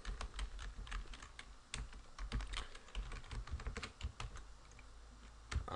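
Typing on a computer keyboard: a run of irregular keystroke clicks that thins out and stops about four and a half seconds in.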